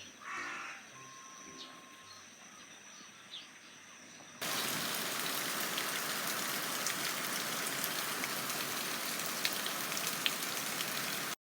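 Steady rain falling, with scattered drops ticking. It starts suddenly about four seconds in and cuts off just before the end.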